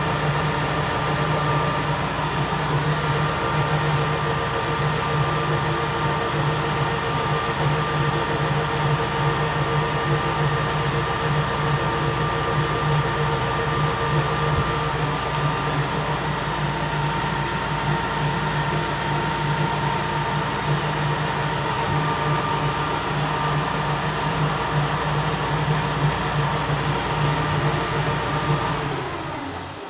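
Weiler Matador VS lathe running, its leadscrew turning: a steady machine hum with a few constant whining tones. It dies away near the end.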